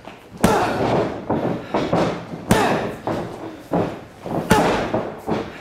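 Sharp thuds and slaps of a boxing bout in a ring, with three loud strikes about two seconds apart and several lighter ones between them, each ringing briefly.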